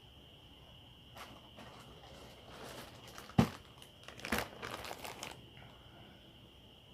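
A plastic courier mailer being handled and cut open with scissors: scattered crinkling rustles, a sharp click about three and a half seconds in, then a second spell of crinkling.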